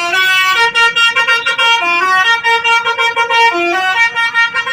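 Tour bus's musical 'basuri' horn playing a loud, continuous melody that jumps quickly from note to note.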